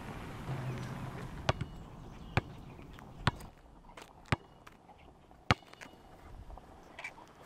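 A soft hiss of car tyres rolling on gravel, fading after about three seconds. Over it come five sharp knocks, about one a second.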